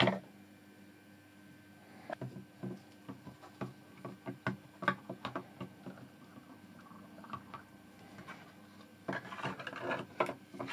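Small wet ticks and light patter from a 3D-printed part bobbing in a plastic tub of water, irregular and thickening near the end, over a low steady hum. A single knock at the very start.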